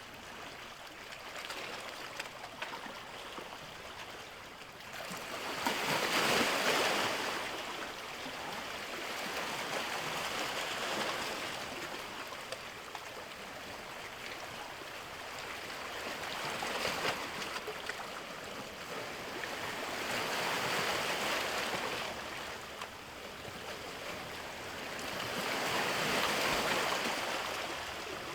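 Sea waves washing in, a rushing noise that swells and fades in a slow rhythm about every five seconds, loudest about six seconds in and again near the end.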